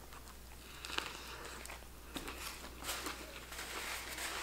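Faint close-up chewing and mouth sounds from a bite of a veggie-patty sandwich, with soft crackles, and a paper napkin crinkling in the second half.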